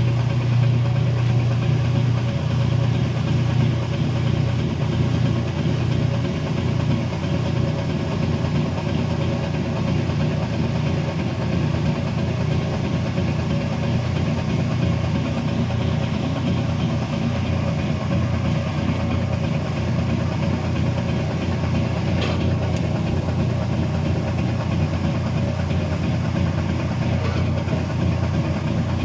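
Kenmore 70 series washing machine draining: a steady motor hum with an unexplained clicking noise that comes only during the drain.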